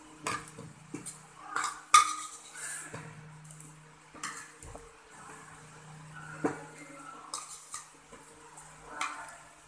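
Metal spoon scraping and clinking against a bowl as the last of the noodles are scooped up: a string of irregular clinks and scrapes, the sharpest about two seconds in.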